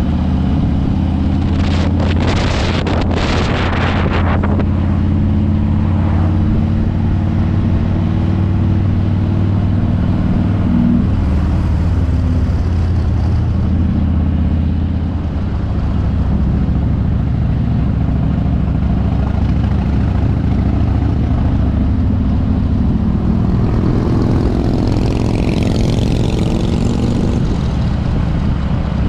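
Harley-Davidson V-twin motorcycle engine running steadily under way, with wind rushing over the microphone. The engine note shifts about halfway through, and gusts of wind noise come a few seconds in and again near the end.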